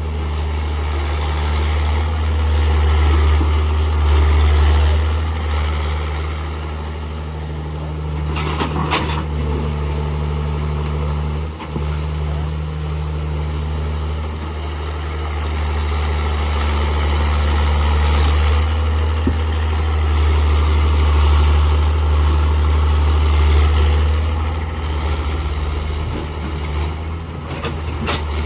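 Tata Hitachi hydraulic excavator's diesel engine running steadily, its level swelling and easing as the machine works. A short burst of noise comes about eight and a half seconds in.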